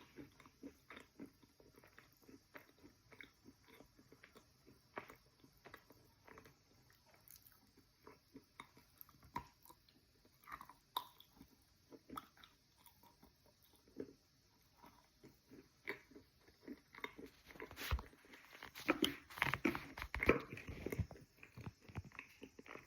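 Chewing of soaked chalk close to the microphone: soft, wet crunches and mouth clicks. A denser run of louder bites comes a few seconds before the end.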